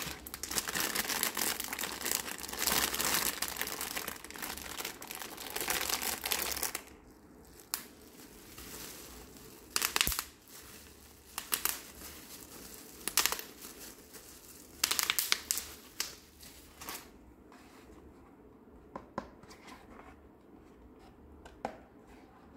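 Plastic packaging, a bag and bubble wrap, crinkling as it is handled and pulled off the toys: a dense stretch for about the first seven seconds, then short bursts of crinkling, and a few light clicks near the end.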